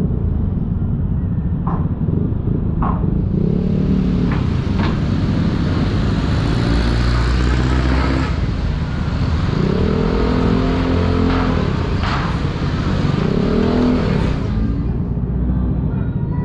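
Yamaha NMAX scooter running through a GP2 Villain aftermarket muffler while riding in traffic, the engine speed rising and falling about three times as it pulls away, with a rush of wind and road noise through the middle and a few sharp clicks. The muffler's rivets have worked loose, the fault behind the tinny, can-like sound it has.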